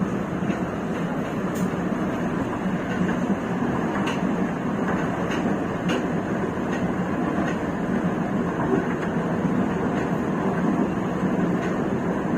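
LRT-1 CAF 4th Generation light rail train running between stations, heard from on board: a steady rumble of wheels and running gear on the rails, with a few faint clicks.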